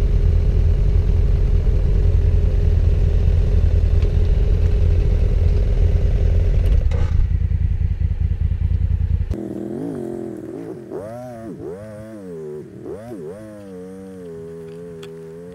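Adventure motorcycle running under way, its engine and road noise loud and steady. About nine seconds in this cuts off abruptly, and a quieter pitched sound rises and falls several times before levelling off.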